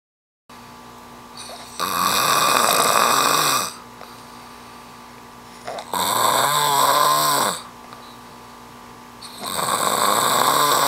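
A sleeping man snoring loudly through his open mouth: three long rasping snores, each about two seconds, coming every three and a half seconds or so.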